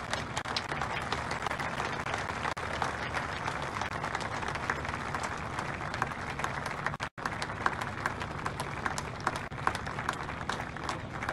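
A group of people clapping steadily, a dense crackle of applause that drops out briefly about seven seconds in, with single claps standing out more near the end.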